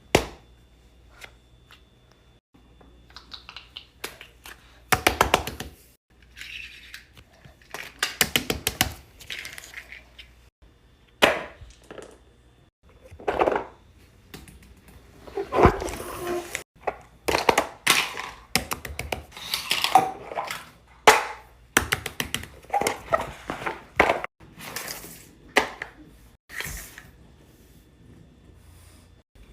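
Plastic fidget toys being handled, with irregular bursts of clicks, taps and knocks, some in quick rapid-fire trains.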